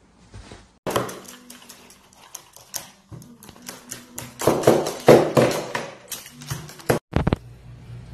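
Quick, irregular tapping and clicking from a parrot moving about a hard tabletop with a cable in its beak, loudest about five seconds in. The sound starts abruptly about a second in and cuts off shortly after seven seconds.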